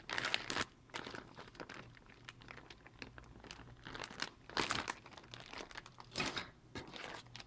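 Packaging crinkling and rustling in irregular bursts as kit parts are handled and unwrapped, with louder crackles near the start, the middle and toward the end.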